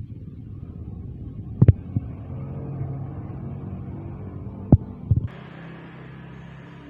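A cat snoring, a low steady rumble, broken by a few sharp knocks about two and five seconds in.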